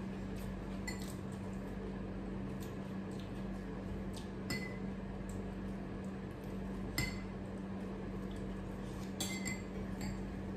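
A metal spoon clinking lightly against a glass dal bowl and a china plate, a few separate clinks each with a short ring, over a steady low hum.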